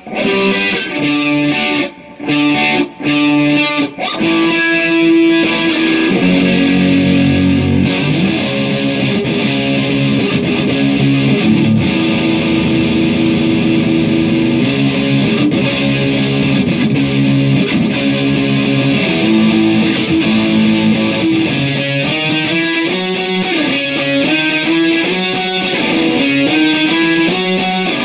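Guitar played as an instrumental passage. Choppy chords cut off by short breaks in the first few seconds give way to steady strummed chords, and near the end it moves into quicker, changing notes.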